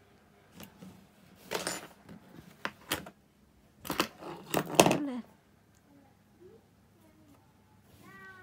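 Small handling sounds on a wooden tabletop: a few short clinks and knocks as tools are set down and the crocheted hat is moved, the loudest about four to five seconds in.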